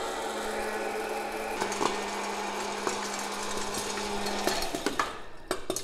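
Electric hot-air popcorn popper running: a steady fan-motor hum and rush of air with scattered clicks. The motor cuts off about four and a half seconds in, followed by a few sharp knocks.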